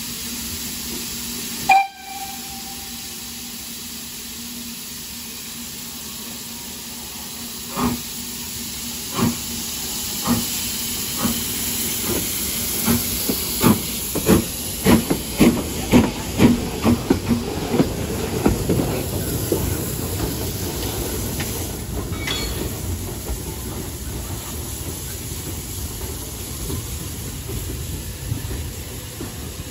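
BR Standard Class 4 4-6-0 steam locomotive, a two-cylinder engine, running light. Steam hisses throughout, and a short whistle blast sounds a couple of seconds in. Then the exhaust chuffs start slow and quicken as it gets under way past the listener, giving way to a steady, slowly fading rumble and hiss as it moves off.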